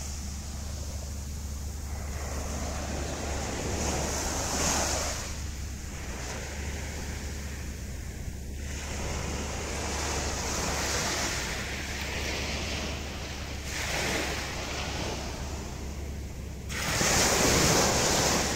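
Sea waves breaking and washing up a sandy beach. The surf swells and fades every few seconds and is loudest as a wave breaks near the end.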